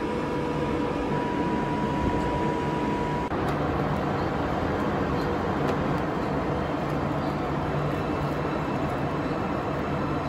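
Vegetable processing line machinery running: a steady, dense mechanical noise with a low hum from the mesh-belt conveyor and its fans. A steady high whine runs through the first three seconds or so, then cuts off abruptly.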